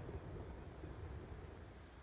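Faint, low rumble and hiss of a fireworks display dying away as a large burst of white glittering stars fades out, growing steadily quieter with no distinct bangs.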